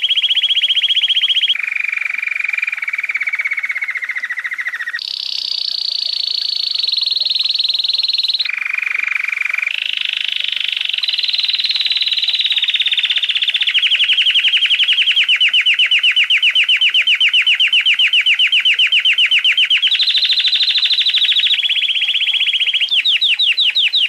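Domestic canary singing: an unbroken chain of rapid trills, each held a few seconds at its own pitch before switching to the next, the longest a slower pulsing roll through the middle.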